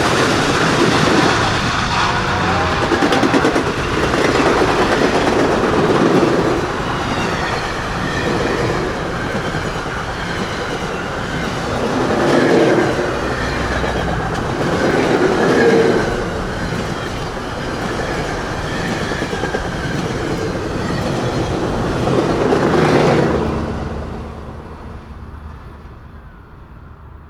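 Steam locomotive train running on rails, its wheels clattering over the rail joints, with the sound swelling and easing every few seconds. Near the end it dies away.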